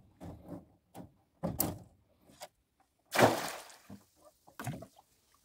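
Wire-mesh fish trap clunking against the boat's side a few times, then a loud splash about three seconds in as the trap is thrown back into the lake.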